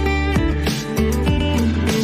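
Background music led by a strummed guitar over a deep bass.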